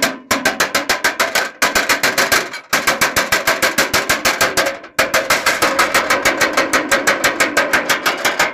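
Rapid hammering on ringing metal, about eight strikes a second, in runs of one to two seconds with short breaks between them.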